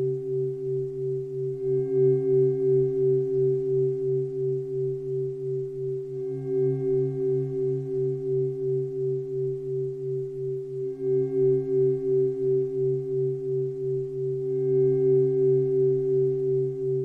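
Sustained meditation drone: a low chord of held tones, wavering in level two or three times a second, with a fainter higher ring swelling in four times.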